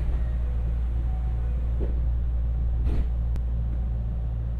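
Steady low hum of a 225-series electric train standing at a station, heard from inside the passenger car. A couple of faint knocks and one sharp click come about three seconds in.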